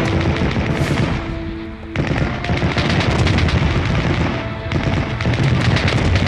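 Music soundtrack mixed with rapid automatic gunfire and booming explosion effects. A brief lull about a second and a half in ends in a sudden loud hit.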